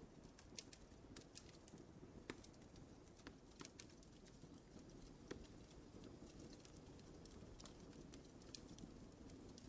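Wood fire in a fireplace crackling quietly: irregular sharp pops and snaps over a soft low rumble of flame, with slightly louder pops about two and five seconds in.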